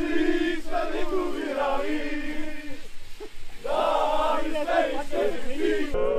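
A group of men singing a chant together in unison, with a short break about three seconds in.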